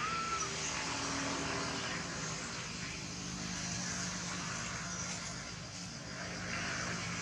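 A distant engine drones steadily under a continuous high buzz of forest insects, with a short chirp near the start.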